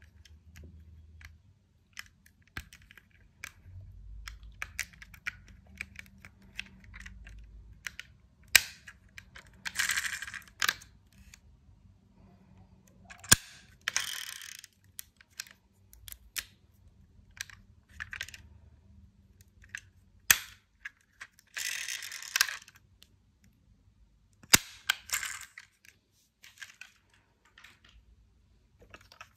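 Small diecast metal toy cars clicking and clattering against each other as they are handled in a box, with four sharp knocks spread through the stretch and several short rattling scrapes of about a second each.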